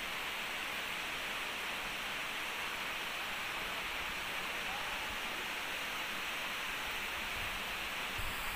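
Steady rush of water flowing through a rocky canyon stream, an even hiss that does not change.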